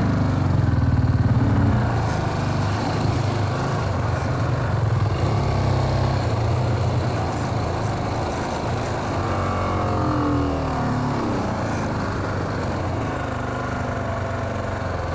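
Motorcycle engine running as the bike is ridden slowly over a slippery, muddy stretch, the note changing pitch about ten seconds in.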